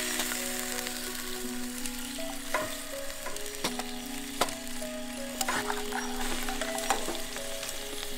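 Cooking oil sizzling in a hot pan over a charcoal fire, with scattered sharp crackles and pops. Soft background music with held notes plays underneath.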